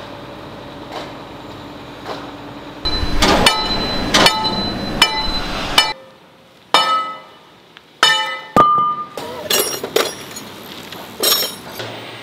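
Irregular hammer blows on steel, each strike ringing on briefly with a clear metallic tone. A rushing noise runs under the first few strikes and stops about six seconds in.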